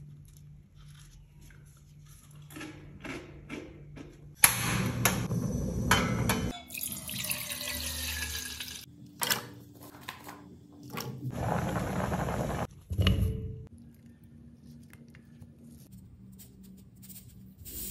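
Kitchen water running in three loud stretches in the middle, with small clicks and taps of food being handled before and after.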